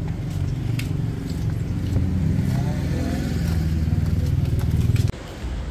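Motor vehicle running, a steady low engine and road rumble with scattered clicks, which cuts off abruptly about five seconds in.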